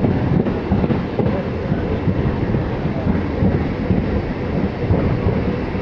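Steady, loud low rumble of a MEMU electric train at the station, with no clear breaks or distinct events.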